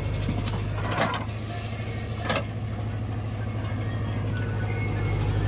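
Diesel engine of heavy earthmoving machinery running steadily, with two sharp metallic clanks about one second and two and a half seconds in.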